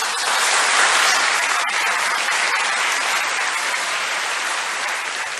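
Large audience applauding, swelling within the first second and slowly easing off.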